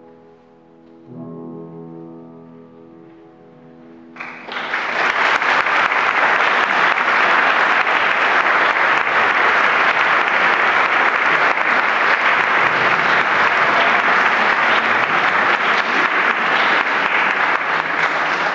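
A closing piano chord, struck about a second in, dies away. About four seconds in, the audience breaks into loud, steady applause.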